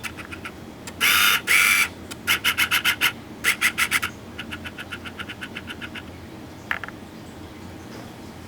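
Rapid scratching: two long scrapes about a second in, then quick runs of short strokes at about six a second that grow fainter, and a single click later on.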